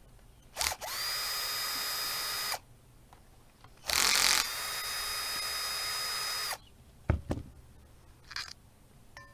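Power drill running twice, about two seconds and then nearly three seconds, its whine rising quickly and then holding a steady pitch each time. A knock follows near the end.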